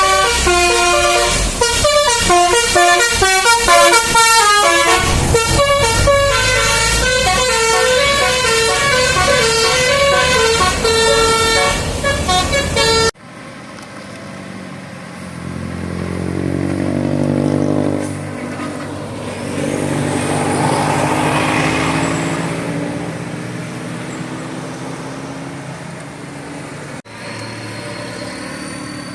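A bus's multi-tone telolet air horn, run by a DAV module, playing a fast melody of stepped notes for about thirteen seconds before it cuts off suddenly. After that, a vehicle engine swells and fades, its pitch rising and falling as it passes.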